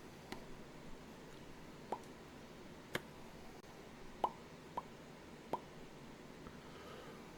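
A person making short mouth pops, about six spaced over several seconds; several are hollow, slightly rising plops and a couple are sharper clicks.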